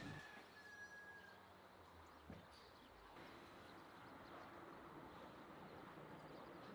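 Near silence: faint background hiss, with a click at the start, a thin steady high tone lasting about a second and a half, and a soft tap about two seconds in.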